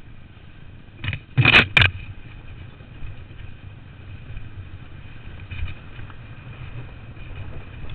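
Honda CR250 two-stroke dirt bike engine running steadily, heard from the rider's helmet on a dirt trail. A cluster of three loud knocks comes between one and two seconds in.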